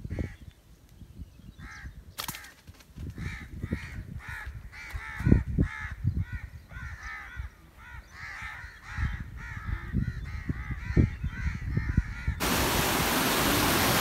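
Birds in the treetops calling over and over in quick short calls, with low thumps of wind on the microphone. Near the end it cuts abruptly to a steady loud rush of canal water churning past concrete.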